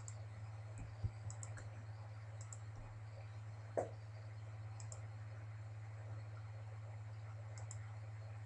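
Computer mouse button clicks, short sharp clicks often in quick pairs, scattered through, over a steady low hum. One louder brief knock comes about four seconds in.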